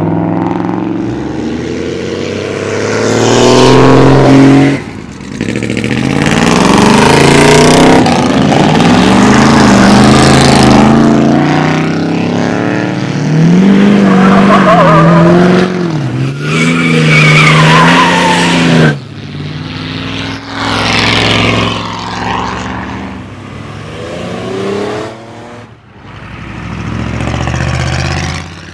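Pickup trucks accelerating hard past one after another, their engines revving loudly up and down through the gears, each pass rising and then fading.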